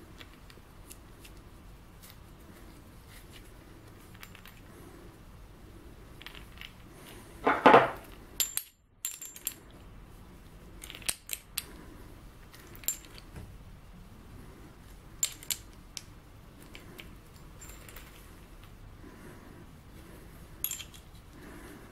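Scattered metallic clicks and clinks of a small steel open-end wrench and nut against a metal disc on a threaded shaft as the nut is tightened by hand, with one louder clatter partway through.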